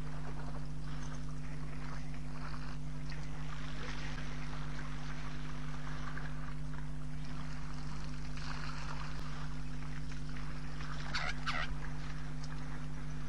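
African elephants splashing and sloshing water with their trunks in a shallow muddy waterhole: irregular watery splashes, the sharpest a quick pair near the end. Under them runs a steady low hum.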